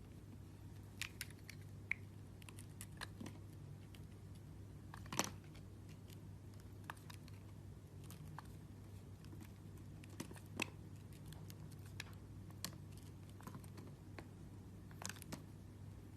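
A knife cutting and carving a bar of soap: irregular crisp clicks and scrapes, the loudest about five seconds in, over a steady low hum.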